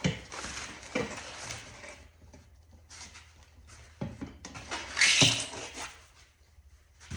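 Packaging being handled while unpacking a furnace kit: irregular rustling and scraping with a few knocks, and a louder rustle about five seconds in.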